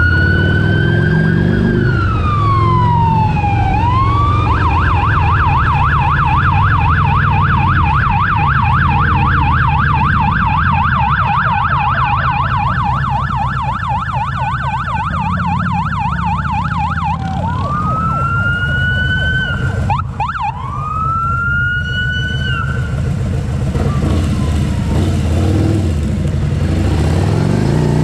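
Emergency vehicle siren: a wail that rises and falls, switching about four seconds in to a rapid up-and-down yelp, then back to two rising wails near the end before it fades away. Under it runs a steady low rumble of motorcycle engine and wind noise.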